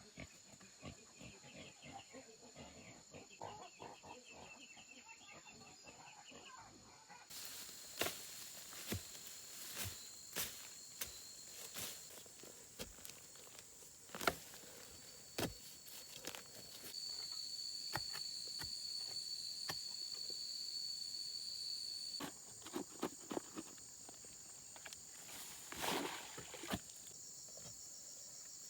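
Insects chirping steadily in a high-pitched chorus, with scattered sharp knocks and rustles throughout.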